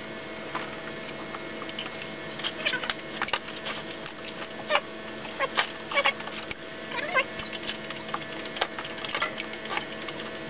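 Hand tools and metal engine parts clicking and clinking irregularly, with a few short squeaks, as bolts and parts are worked loose on the cylinder head of a Chevrolet 4.2 L inline-six.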